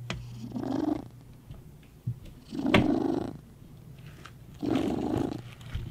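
Tabby cat snoring while dozing: three rough breaths, about two seconds apart.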